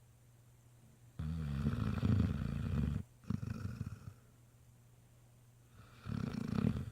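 Great Dane puppy snoring in his sleep: a long snore about a second in, a shorter one right after it, then another snore near the end.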